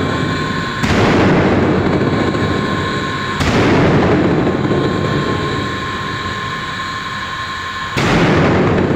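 Three loud booms, about a second, three and a half seconds and eight seconds in, each a sudden blast that fades away over a couple of seconds, over a steady high whine.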